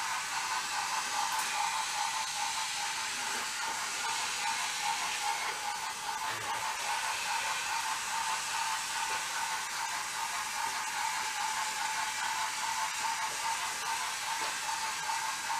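Small battery-powered toy train motors whirring steadily as the trains run on wooden track, a constant high whine with a hiss over it and a few faint clicks.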